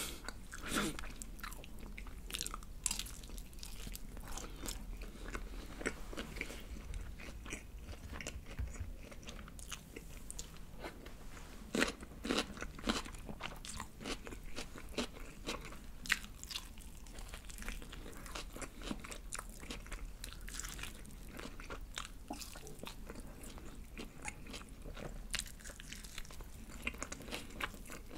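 Close-up chewing and biting of seasoned (yangnyeom) BBQ Golden Olive fried chicken: irregular crunching and crackling of the fried coating, with a few louder bites around twelve and sixteen seconds in.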